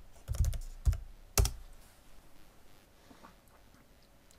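A few quick computer keyboard keystrokes in the first second and a half, the last one the loudest.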